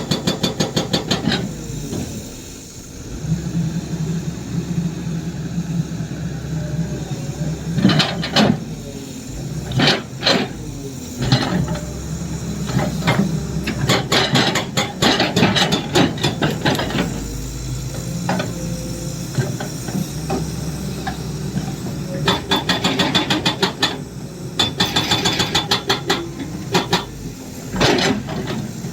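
Excavator with a hydraulic breaker hammering in bursts of rapid, even blows, the diesel engine running steadily between bursts, with a few single sharp knocks in between.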